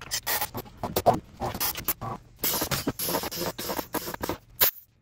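Tyre changer working a thick-sidewalled MRF ZDM3 gravel rally tyre onto its wheel: the rubber bead squeaks and scrapes in short, irregular strokes against the mount head and rim, stopping briefly near the end.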